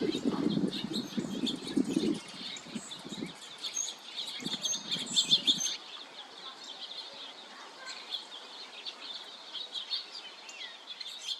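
Small birds chirping: a dense, steady stream of short, high chirps. Bursts of low rumble come and go in the first half, then stop.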